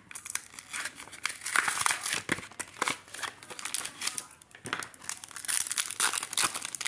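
Yu-Gi-Oh blister pack and its foil booster wrapper crinkling in the hands and being torn open, in quick irregular rustles and rips.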